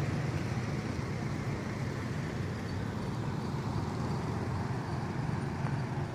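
City street traffic noise: a steady low hum of vehicles on the road.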